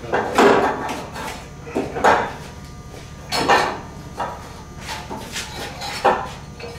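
Metal clanking and knocking of hand tools and parts being handled: a string of separate sharp clanks, a second or so apart.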